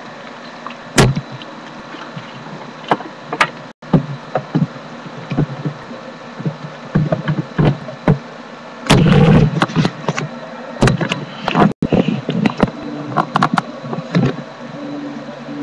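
Irregular knocks, taps and rubbing close to the camera microphone, with a loud bump about a second in and a longer, louder rumbling burst around nine seconds in, over a steady low hum.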